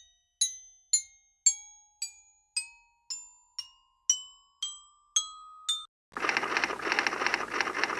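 Intro jingle: about a dozen bell-like chime notes struck roughly twice a second, each ringing out, over a held tone that steps upward in pitch. About six seconds in, the notes stop and a loud, dense rush of noise takes over.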